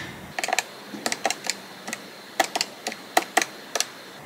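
Plastic keys of a desk calculator being pressed one after another: about a dozen short, light clicks at an uneven pace as a total is keyed in.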